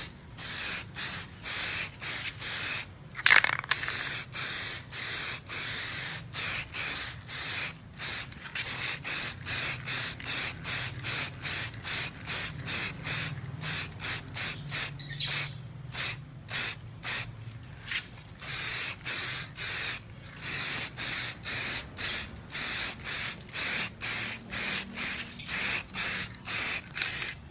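Aerosol can of rubber paint (Plasti Dip–type) spraying in many short hissing bursts, about two to three a second, as a fresh coat goes onto a masked car grille. There is a single louder knock about three seconds in.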